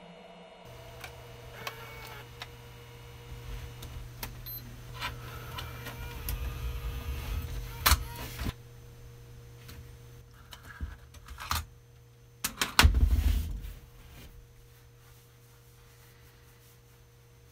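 Camcorder being handled: sharp clicks and clacks from its cassette compartment, with a small motor whirring for a few seconds in the middle and a loud clatter about thirteen seconds in, over a steady low hum.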